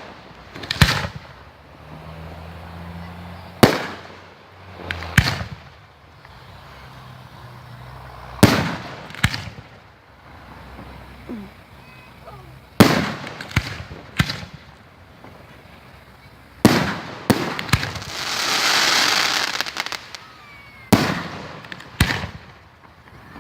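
Fireworks going off: about a dozen sharp bangs spaced a second or a few seconds apart, several with a trailing rumble. A little past halfway, a loud hiss swells and fades over about two seconds, just after a quick run of three bangs.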